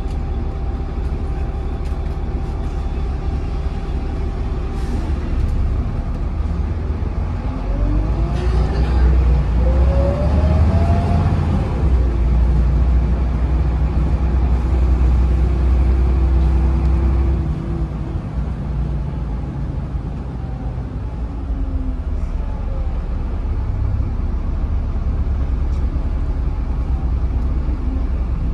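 Volvo B7RLE bus's diesel engine and ZF gearbox heard from on board. It runs steadily, then about seven seconds in it pulls harder with a rising gearbox whine. A little past halfway the engine eases off, and a faint falling whine follows.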